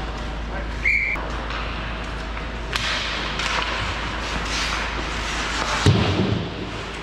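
Hockey game play in a rink over a steady low hum: one brief high whistle blast about a second in, then scraping and clatter of play, and a heavy thud near the end.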